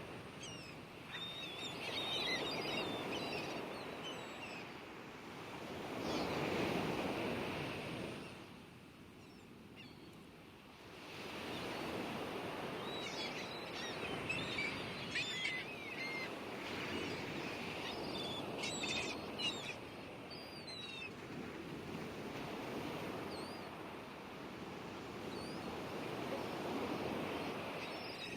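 Surf washing in and out in slow swells, with small birds chirping repeatedly over it.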